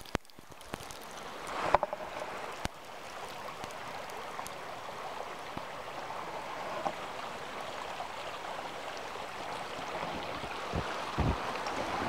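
Steady rushing wind noise on the camera microphone, slowly building, with a few faint clicks and some low thumps near the end.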